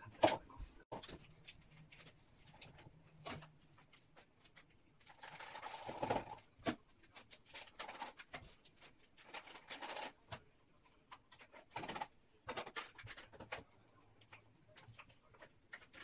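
Scattered clinks and knocks of dishes and kitchen things being handled and set down at a kitchen sink, with two brief rushing sounds about five and ten seconds in.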